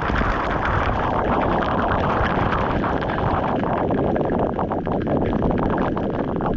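Loud, steady roar of many waterfall cascades pouring down the Weeping Wall's rock face.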